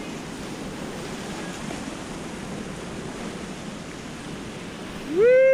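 Whitewater rapids rushing and churning around a kayak running through them. Near the end a person lets out a loud, rising whoop.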